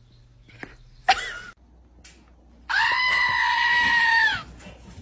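An animal's cry: a short rising squeal about a second in, then one long, steady, high-pitched scream lasting under two seconds.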